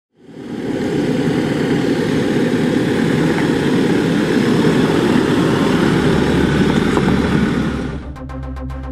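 A vehicle engine running, a loud, dense rumble that fades in at the start and holds steady. About eight seconds in it gives way to rhythmic electronic music.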